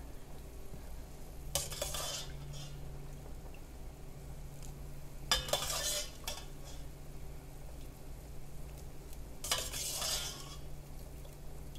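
Metal ladle scooping vegetable chunks from a stainless steel pot and tipping them into a pot of boiling broth, three times, each drop a short noisy burst of about a second. A steady low hum and the bubbling of the pot run underneath.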